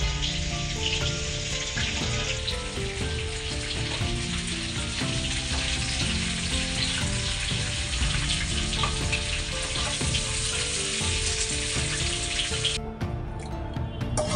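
Chicken frying in hot oil: a steady sizzling hiss that cuts off suddenly near the end, with background music playing.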